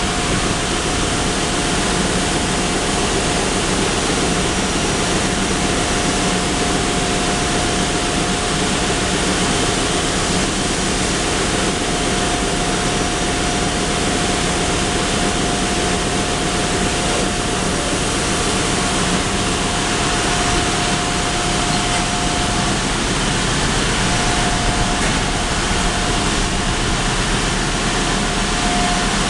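Ship's engine-room machinery noise: a steady drone with a constant high whine running through it.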